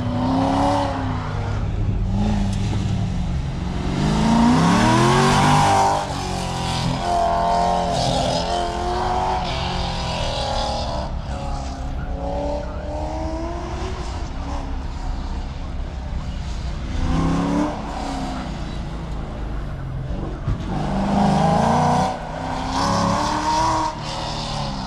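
A car being driven hard on an autocross course: the engine revs up and eases off repeatedly, climbing loudest twice, with tires squealing through the corners.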